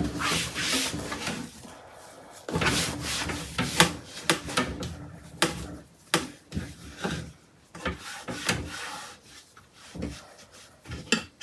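Cloth rubbing over the bottom of an artificial-wood (chipboard) kitchen drawer, then scattered light knocks and taps as hands handle the drawer.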